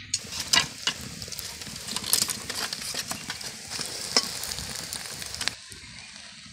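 Egg omelette sizzling in hot oil in a wok, with a steel spatula clicking and scraping against the pan several times. The sizzle drops off suddenly about five and a half seconds in.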